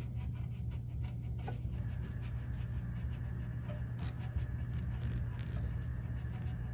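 Cotton swab scrubbing over the tape heads and capstan of a cassette deck, with small scratchy clicks and rubs, over a steady low hum. A faint high steady whine comes in about two seconds in.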